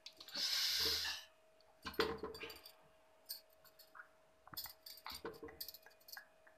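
Quiet kitchen handling sounds as ginger-garlic paste is added to raw mutton in a metal pot: a brief rustle about half a second in, then scattered light clinks and taps of a spoon or container against the pot.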